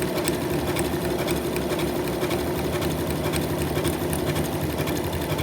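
Janome 9450 sewing machine running steadily at full speed, stitching a woven overedge stitch with rapid, even needle ticks over a steady motor hum.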